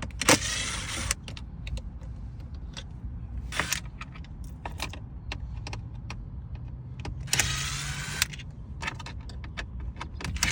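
Plastic steering-wheel trim being worked off its clips: scattered clicks, with three short bursts of scraping, each about a second long.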